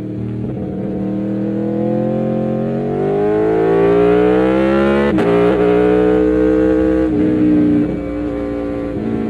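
Aprilia Tuono V4 1100's V4 engine pulling hard under acceleration, its pitch rising steadily, then dropping abruptly about five seconds in at an upshift. The pitch climbs again and falls once more near the end.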